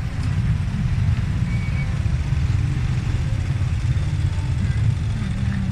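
Motorcycle and car engines running close by in slow, jammed traffic: a steady low engine noise, with a stronger engine hum coming in near the end.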